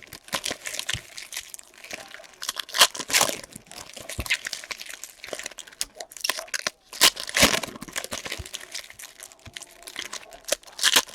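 Trading card pack wrappers crinkling and tearing as basketball card packs are opened and handled, in irregular bursts with the loudest about three seconds in and again around seven seconds.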